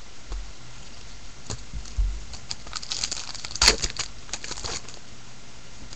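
Clear plastic wrapper of a baseball card pack being torn open and crinkled, a run of crackles that is sharpest about three and a half seconds in. There are a couple of dull bumps before it.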